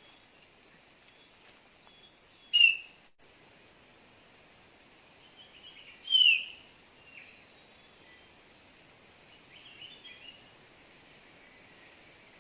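Bird calls: two loud, short chirps that fall in pitch, about three and a half seconds apart, with a few fainter chirps later. A steady hiss of background noise runs under them.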